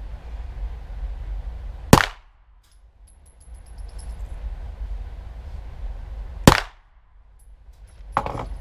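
Two single shots from a 9x19 mm Glock pistol, about four and a half seconds apart, each a sharp loud crack.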